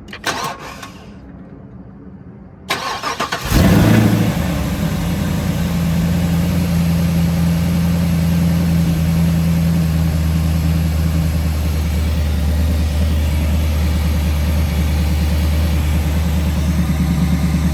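Camshaft-equipped LT1 6.2 L V8 in a Chevrolet Camaro 2SS, fitted with an LT2 intake manifold, cranking briefly about three seconds in, catching with a flare of revs, then settling into a steady idle.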